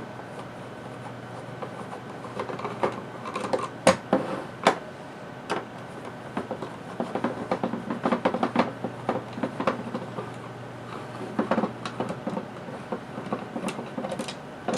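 Handling noise from a small plastic alarm-controller case: irregular plastic clicks, taps and scraping, with a few sharp clicks about four to five seconds in and a busier run of taps and rustling after about seven seconds, over a faint steady hum.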